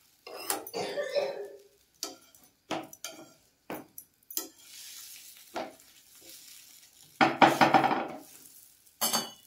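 A metal spatula and tongs knocking and scraping on a tawa griddle as bread is turned and toasted, in a string of short sharp clinks with a faint sizzle between them. A louder, longer metallic clatter comes a little past seven seconds in.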